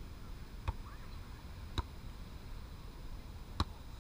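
Three sharp slaps of a volleyball being struck by hands and forearms during a rally, the last the loudest, over a steady low background hiss.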